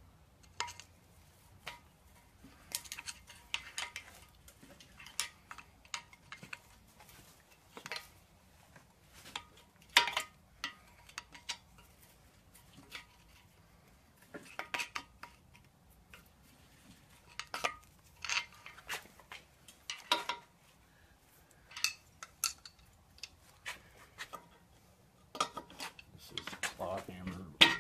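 Steel screwdriver scraping and prying on a bare cast-iron small-block Chevy 350 engine block: irregular metallic clinks and short scrapes, busier near the end.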